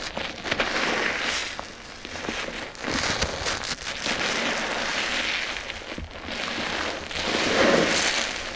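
Yellow sponges squeezed by hand in thick shampoo suds and soapy water: wet squelching with crackling, popping foam and splashing. It comes in repeated squeezes, and the loudest is near the end.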